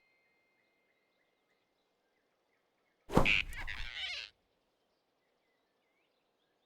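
A sudden loud hit with a whoosh that lasts about a second, about three seconds in, over faint bird chirps.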